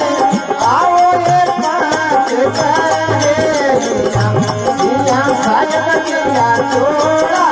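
Marwari devotional bhajan: a voice singing a winding, ornamented melody over a steady beat of hand percussion.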